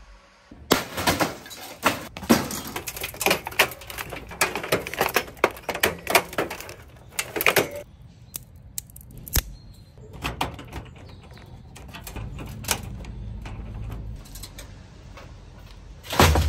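Hard objects being handled: a quick run of sharp clicks, taps and clatter that thins out after about eight seconds, a low rumble for a couple of seconds, then one loud knock with a low thud near the end.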